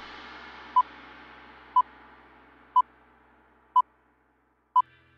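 Film-leader countdown beeps: a short, single-pitched beep once a second, five in all, over a faint wash of noise that fades away.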